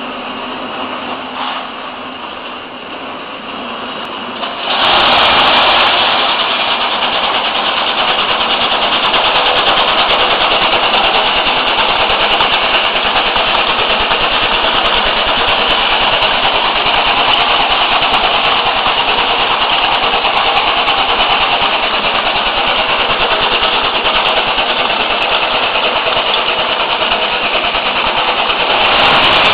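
Almond cracking machine running: its electric motor and cracking mechanism make a steady, dense noise that jumps louder about five seconds in and then holds steady.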